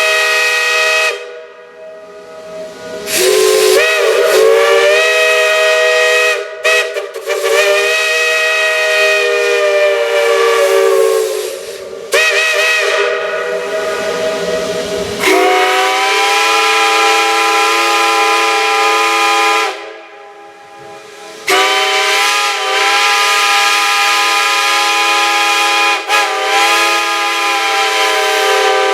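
Chime steam whistles blown in a run of long blasts with short breaks, each blast a chord of several notes over a steam hiss. The chord changes about halfway through.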